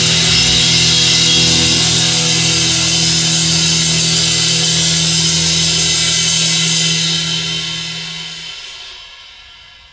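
Hardcore punk band's closing held chord, with cymbals washing over sustained guitar and bass notes. It dies away over the last three seconds as the song ends.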